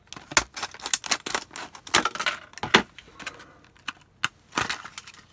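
Scissors snipping through the stiff clear plastic of a blister pack: a run of sharp snips and plastic crackles, irregular and close together.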